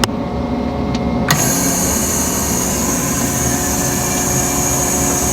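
Tractor and Massey Ferguson 2270 large square baler running steadily while the baler's dogs work the last bale out of the chamber in manual mode. There is a click at the start and a sharp knock about a second in, after which a high hiss joins the machine hum.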